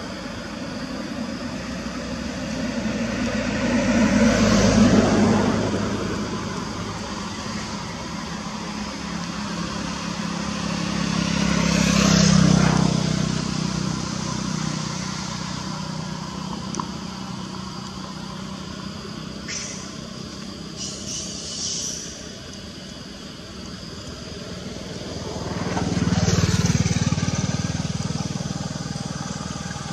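Motor vehicles passing one after another, three times: each engine sound swells for a few seconds and fades again, over a steady background hum.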